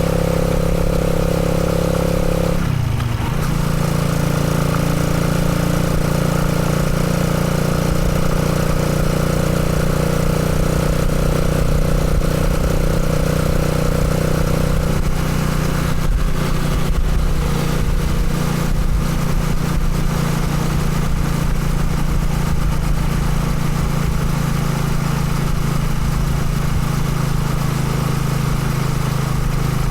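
Motorcycle engine running steadily. About three seconds in, its pitch dips briefly and then settles again.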